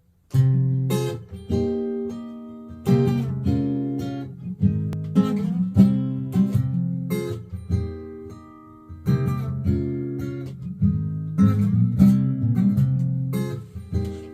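Acoustic guitar strumming chords, with sharp strokes that ring and die away between them.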